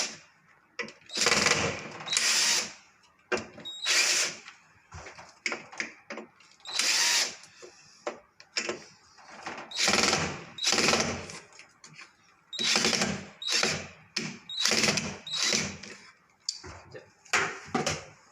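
Cordless drill-driver run in short bursts, about ten times, on a tight washing-machine panel screw that is not coming loose.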